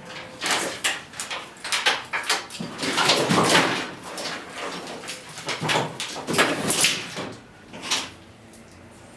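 Irregular rustling, scraping and knocking of a car's wiring harness (bundled wires and plastic connectors) being pulled and handled. It comes in quick successive strokes and dies down near the end.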